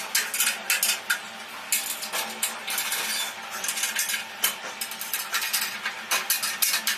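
Short screws being turned by hand into the stainless steel frame of a wok range, with a dense, irregular run of small metallic clicks, clinks and scrapes.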